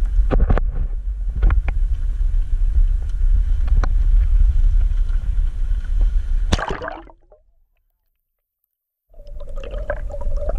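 A low rumble with scattered knocks as the camera is handled above the sea. About six and a half seconds in, a splash as the camera plunges into the water. After a short silence come muffled underwater gurgling and a steady hum.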